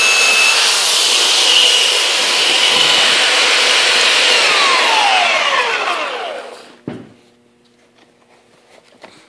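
A Skil belt sander running against the edge of a wooden keel board, a steady high whine over the rasp of the belt on wood. About five seconds in it is switched off and the whine falls away as the belt spins down, followed by a single knock.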